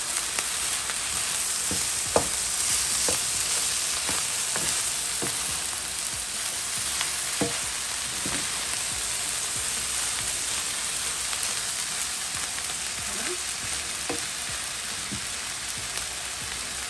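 Pineapple fried rice sizzling steadily in a skillet while a wooden spoon stirs it, scraping and knocking against the pan now and then.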